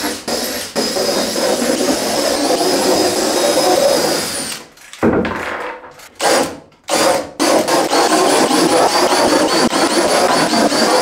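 Cordless drill boring holes through a coated plywood panel. There is a steady run of about four seconds, then a few short bursts, then another long run.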